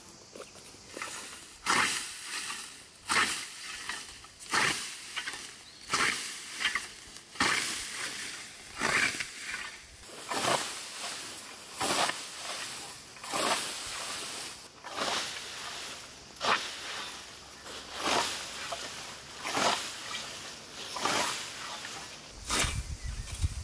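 Hand scythe swishing through tall grass as the blade cuts the stems, a steady rhythm of about one stroke every one and a half seconds. A low rumble comes in near the end.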